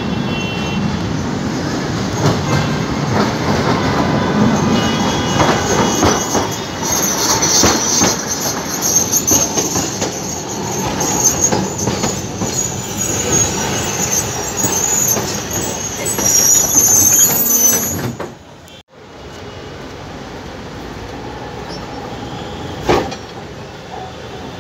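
Alexandria tram running close by: steel wheels rumbling and clacking over the rail joints, with a high-pitched wheel squeal from about a third of the way in. About 19 s in the sound drops suddenly to a quieter steady hum, with one sharp knock near the end.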